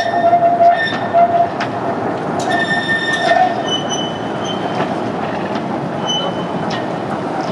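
Articulated tram rolling through a tight turn, its steel wheels squealing on the curved rail over the steady running noise. The squeal is loudest in the first second and again around the middle, with shorter, higher squeals after that.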